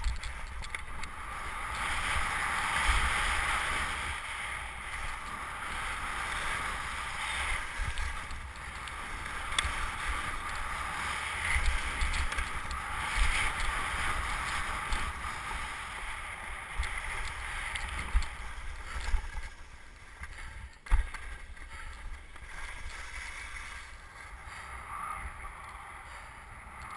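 Skis hissing and scraping over packed snow on a steady downhill run, with irregular low wind buffeting and a single sharp knock about two-thirds of the way through.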